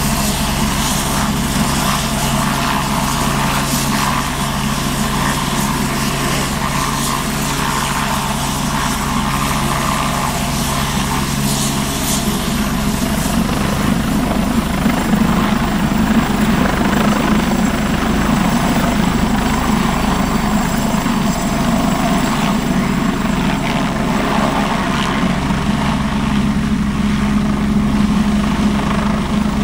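Agusta A109 helicopter's turbine engines and main rotor running steadily on the ground, with a high whine over a low rotor drone. It grows a little louder from about halfway through as the helicopter lifts into a low hover.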